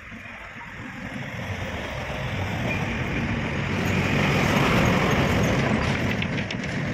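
A motor vehicle passing on the road, its engine and tyre noise growing steadily louder to a peak about four to five seconds in, then fading.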